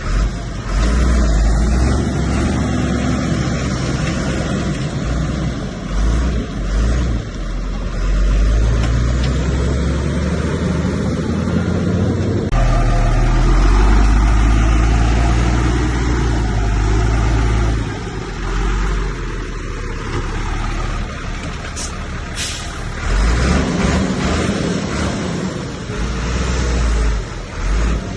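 Heavy diesel engine of a bulldozer working under load, its rumble swelling and easing as it pushes. Short hisses of air come twice near the end.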